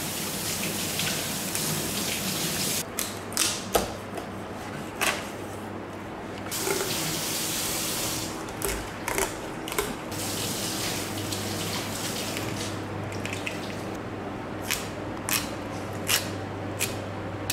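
Knife cutting through a whole salmon, with sharp clicks and scrapes of the blade on bone and the wooden cutting board scattered through the cuts, over a steady rushing hiss.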